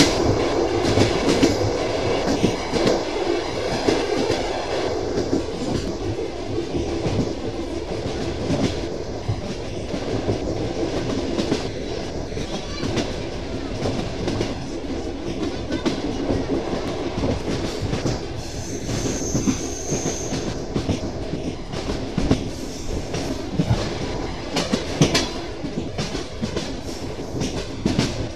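Train wheels clattering over rail joints, with the steady rumble of the running carriage. About two-thirds of the way through, a brief high-pitched squeal rises above the clatter.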